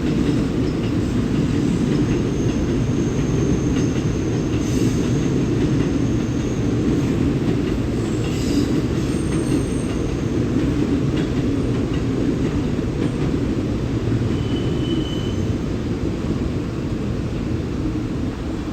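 A train moving along a station platform: a steady low rumble with a few faint, high wheel squeals.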